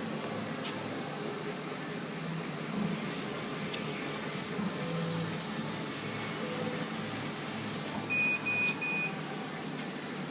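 Steady fan-like hum of a Kamach 1290 CO2 laser cutting machine at work. About eight seconds in, three short, evenly spaced electronic beeps sound at one pitch.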